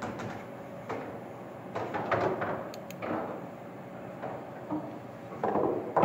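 Pool balls on a coin-operated bar table: a sharp click as the shot is struck, a knock about a second later, then clusters of knocking and clatter, the loudest near the end.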